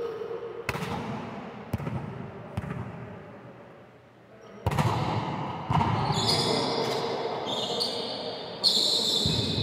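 Volleyballs being struck and bouncing in a gym: a series of sharp thuds a second or so apart, each trailing off in the hall. The court noise grows louder from about halfway through.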